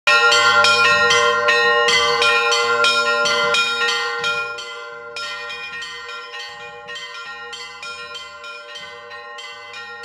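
Russian Orthodox church bells ringing a rapid peal: small bells struck several times a second over the long hum of a larger bell. The ringing fades to a quieter level after about four seconds.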